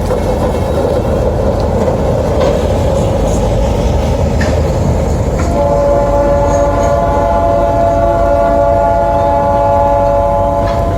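GT18 diesel locomotive and its train passing: a heavy rumble with rail clatter, then about five and a half seconds in the locomotive's horn sounds one long steady blast.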